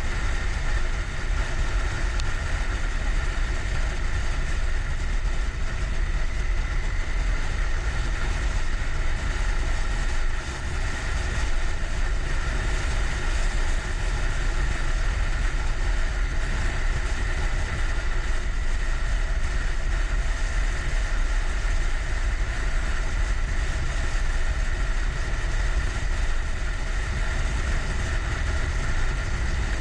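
Motorcycle engine running steadily under way, mixed with a heavy low rumble of wind on the microphone.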